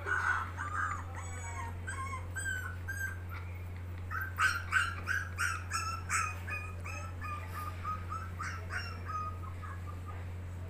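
A puppy whimpering and yipping through a laptop's speaker: many short, high cries in quick succession, thickest about four to seven seconds in and tailing off near the end, over a steady low hum.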